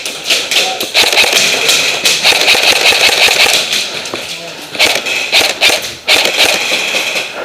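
Airsoft guns firing in rapid bursts, a dense clatter of shots that breaks off briefly about four and a half and six seconds in.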